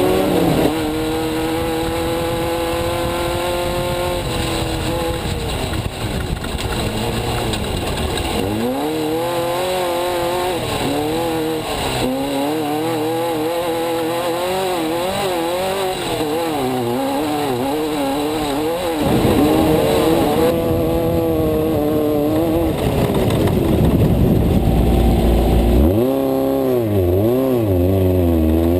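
Off-road race car's engine heard from inside the cab, running at steady revs for a few seconds, then revving up and down over and over over rough terrain, with a constant rushing noise of the ride beneath it.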